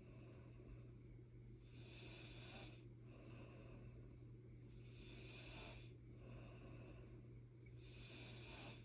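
Faint snoring of a sleeping person: breathy rasping breaths in and out, repeating in a slow cycle about every three seconds, over a steady low hum.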